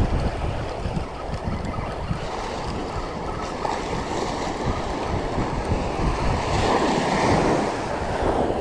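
Surf breaking and washing up the beach, with wind buffeting the microphone; the wash swells louder near the end.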